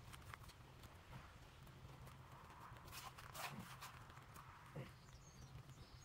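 Faint scratching and crumbling of damp soil as a hand works through it in a plastic planter, with scattered light clicks, the strongest about halfway through.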